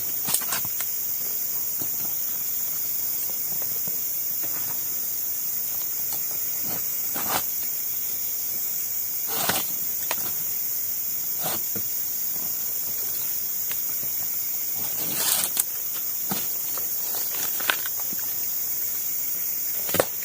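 Steady high-pitched drone of tropical forest insects, with scattered short knocks and rustles from handling things at the camp.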